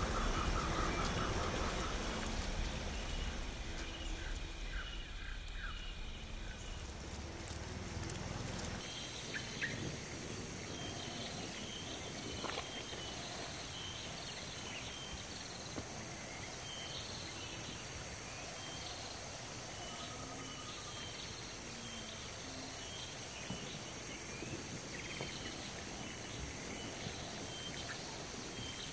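Forest ambience: a steady hiss with many short, high chirping calls repeating from small animals, over a low rumble that stops abruptly about nine seconds in.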